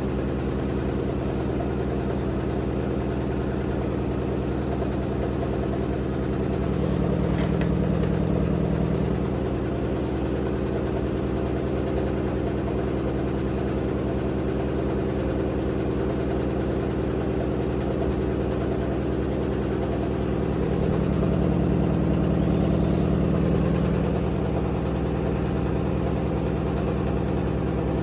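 Hotpoint WD860 washer-dryer running with a badly unbalanced load: a steady motor and drum hum that swells louder twice, with a single sharp click about seven seconds in.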